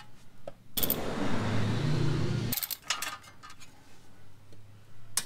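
Cordless power ratchet with a 10 mm socket running for about two seconds, backing out a brake dust shield bolt. Then a few light metallic clicks and clinks as the loose bolt and the steel dust shield are handled.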